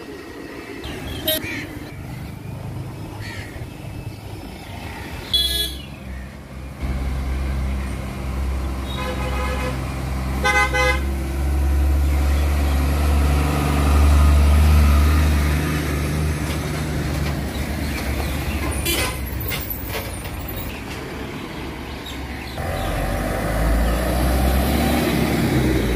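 Heavy road traffic passing close by: a truck's diesel engine rumbling past, with vehicle horns sounding, one short blast about five seconds in and a horn sounding in rapid pulses around nine to eleven seconds. Another heavy vehicle, a bus, comes up near the end.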